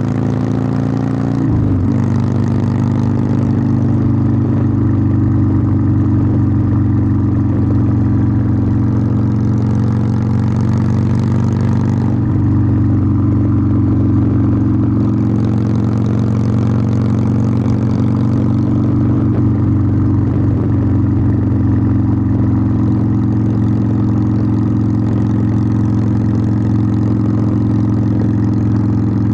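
Harley-Davidson Sportster 1200's air-cooled V-twin running under way, its exhaust holding a steady note. About two seconds in, the pitch dips briefly and picks up again.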